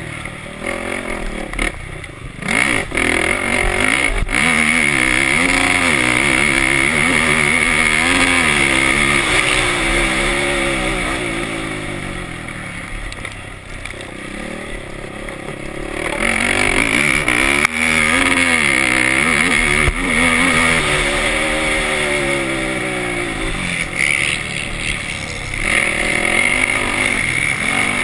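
Racing quad's engine heard from on board, revving up and falling back again and again as the rider works the throttle round a dirt track. It eases off for a few seconds near the middle, then pulls hard again.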